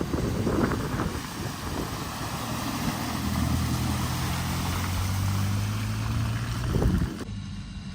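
A vehicle driving through floodwater: water splashing and rushing over a steady low engine note. The sound cuts off abruptly near the end.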